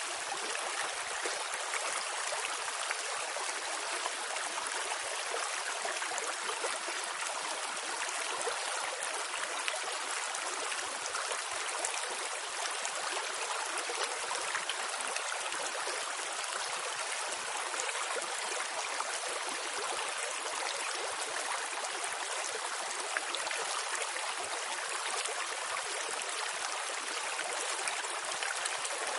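Steady rush of running water, like a flowing stream, even and unbroken throughout.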